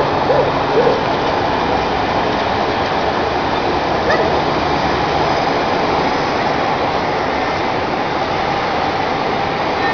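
Komatsu backhoe loader with a hydraulic breaker at work on asphalt, giving a loud, steady, dense clatter with no pauses.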